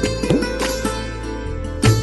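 Instrumental background music: plucked string notes over a steady low drone, with low drum strokes that slide in pitch.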